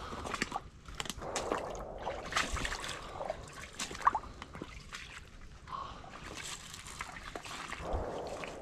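A hiker's irregular footsteps sloshing through shallow water and wet ground, with sharp cracks of brush underfoot.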